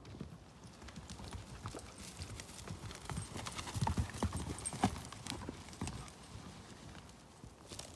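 Horse's hooves striking grassy ground in an irregular run of hoofbeats, louder and closer through the middle.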